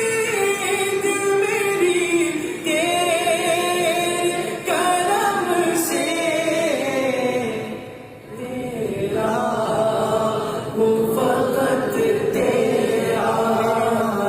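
Qari's solo voice in Islamic devotional chanting, long melodic phrases with wavering ornaments, breaking off briefly about halfway through before going on.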